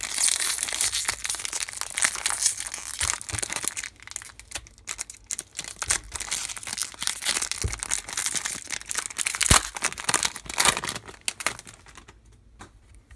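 Foil wrapper of an O-Pee-Chee Platinum hockey card pack crinkling and tearing as it is opened by hand. The dense crackle stops about a second before the end.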